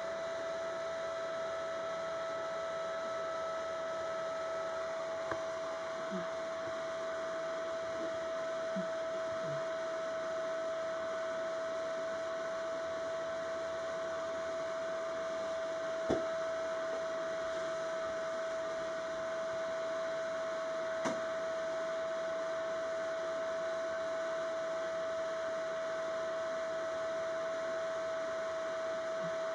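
Steady machine hum holding one constant tone, with a few faint clicks, the clearest about halfway through.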